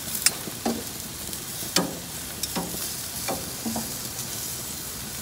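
Steak and chicken sizzling steadily on a barbecue grill, with metal tongs clinking sharply against the grate and meat about six times as the pieces are turned.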